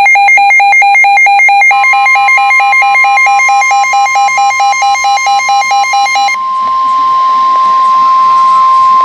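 Emergency alert tones: rapid electronic beeping, about four or five beeps a second, joined about two seconds in by the steady high 1050 Hz NOAA Weather Radio warning alarm tone. The beeping stops about six seconds in, leaving the long unbroken tone that precedes a severe thunderstorm warning broadcast.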